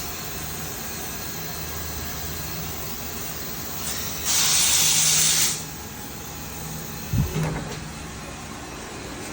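A burst of air hissing out for about a second, the loudest sound here, over a steady workshop background, followed by two short dull thumps near the end.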